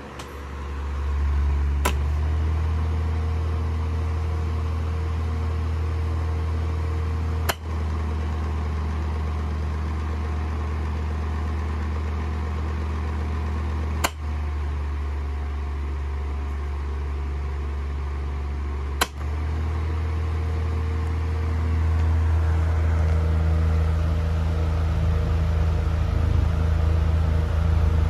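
Early-1980s Arctic Breeze OF12 12-inch table fan running: a steady low motor hum with a rush of air from the blades. Four brief clicks break it, and it grows louder about two-thirds of the way through.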